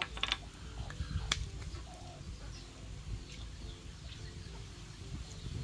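Yard birds calling softly over a low outdoor rumble, with a few sharp clicks in the first second and a half.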